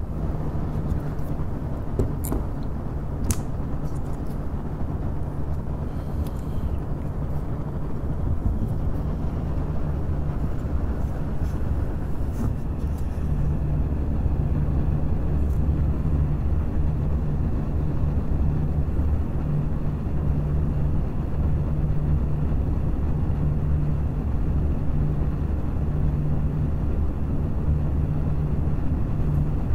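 Several Noctua NF-A14 PWM 140 mm computer fans running together, a steady rush of air with a low hum that swells and fades as the fans beat against each other. A few light clicks come about two to three seconds in.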